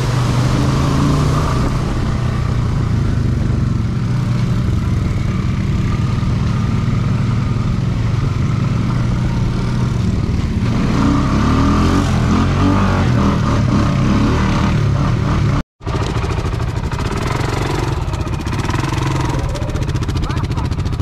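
ATV engine running under load, its pitch rising and falling with the throttle. The sound drops out completely for a split second about three-quarters of the way through.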